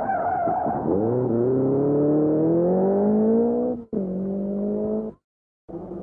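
Lancia 037 rally car's supercharged four-cylinder engine: its pitch drops as it brakes into a bend with tyres squealing, then climbs steadily for about three seconds as it accelerates away. The sound cuts off abruptly twice near the end, with a steadier car engine note between and after the breaks.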